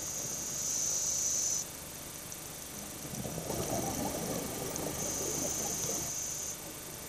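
Scuba diver breathing through a regulator underwater: a steady high hiss of an inhalation, then about three seconds of crackling exhaust bubbles, then another hiss.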